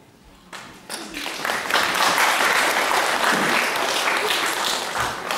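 Audience applause, starting with a few scattered claps about half a second in after a brief hush, then filling out into steady clapping that eases off near the end.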